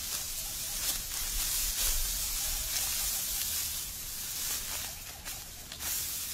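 Dry, ripe wheat stalks rustling and crackling as they are cut by hand with sickles and gathered into bundles. A crisp swish or crunch comes every second or so.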